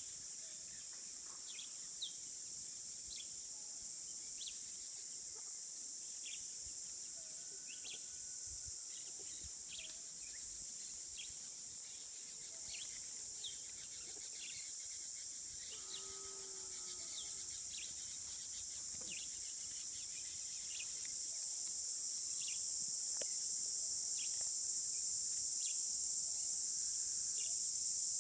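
Steady high-pitched insect drone, growing louder in the second half, with short bird chirps scattered over it.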